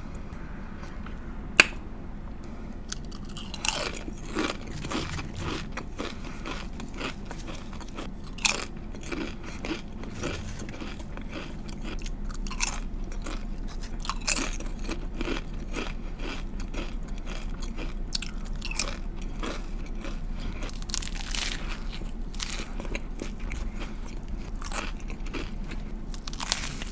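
Close-miked chewing and biting of a turkey lettuce wrap with apples and bacon: crisp crunches and wet chewing clicks, with a sharp click about a second and a half in.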